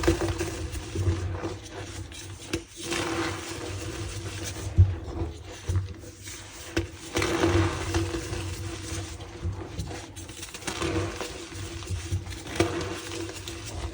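Reformed gym chalk being squeezed and crumbled by hand, a continuous squeaky crunching that swells and eases, with a few sharper cracks.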